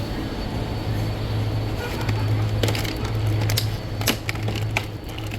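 Steady low hum of a car on the move. From about halfway in, a run of sharp, irregular clicks and knocks sounds over it.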